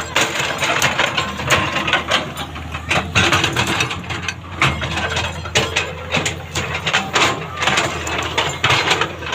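Diesel engine of a JCB backhoe loader running steadily at road work, with frequent sharp clanks and scraping of the machine working.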